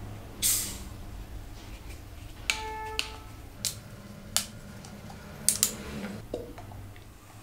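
Screw cap of a plastic bottle of carbonated Fanta being twisted open: a short fizzy hiss of escaping gas about half a second in as the seal breaks, then several sharp plastic clicks as the cap is worked loose, one of them ringing briefly.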